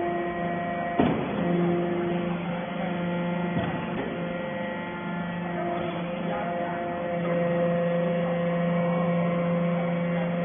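Hydraulic baler's pump motor running with a steady hum, with a sharp knock about a second in and a fainter one a few seconds later.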